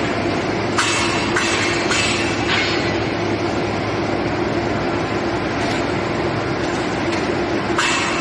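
Steady industrial machinery noise with a constant hum, broken by several short hissing bursts.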